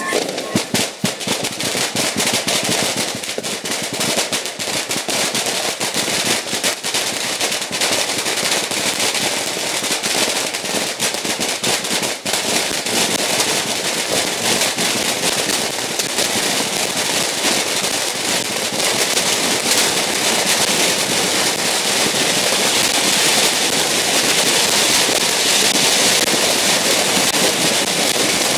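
Firecrackers making up the body of a Guan Gong effigy going off in a dense, unbroken crackle of rapid bangs that grows louder over the last third.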